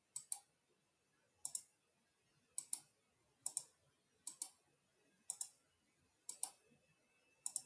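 Faint computer mouse clicks, eight pairs of quick clicks about one pair a second.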